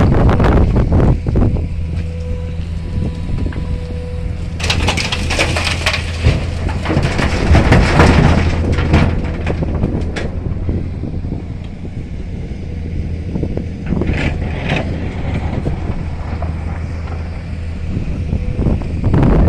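A heavy vehicle's engine running with a steady low hum, under wind buffeting the microphone. From about five to ten seconds in a loud, rough rushing noise rises over it, and two short sharp bursts come near the three-quarter mark.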